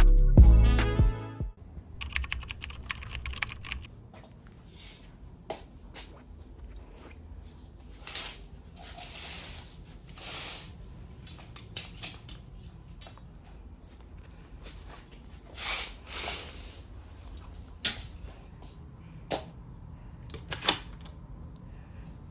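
Background music with a beat ends about a second and a half in. Then come scattered light clicks and a few short soft rustles.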